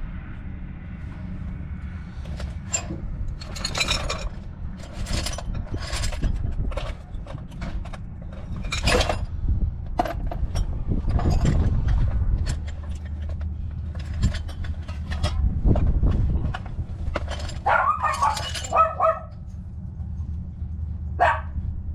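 Metal hand tools clinking and knocking in scattered, irregular strikes over a steady low hum, with a short higher-pitched sound about eighteen seconds in.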